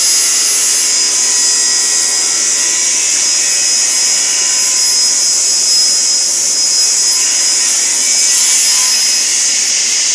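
Sliding-table panel saw running with a steady high whine, its circular blade cutting through wood.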